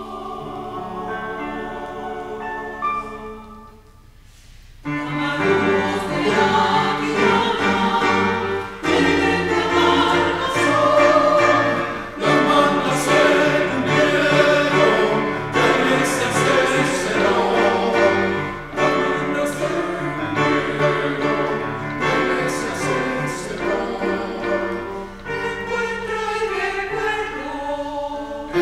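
Mixed choir of men's and women's voices singing a choral arrangement of a ritual dance in several parts. The singing thins and nearly stops about four seconds in, then the full choir comes back in louder about a second later.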